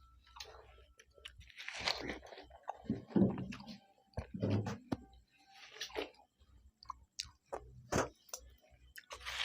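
Several people biting into and chewing watermelon slices in short, irregular bites with scattered clicks.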